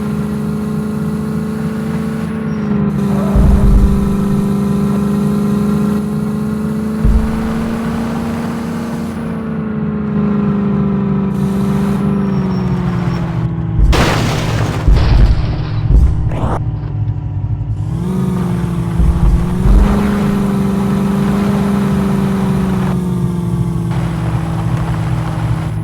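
A Landi (open-top) jeep's engine running under way, its pitch drifting slowly up and down. Heavy low thumps come every few seconds, and a short burst of rushing noise comes about halfway through.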